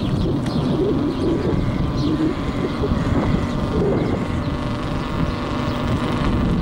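Outdoor ambience: a steady low rumble of wind on the microphone, with birds chirping faintly and pigeons cooing about a second in and again near four seconds.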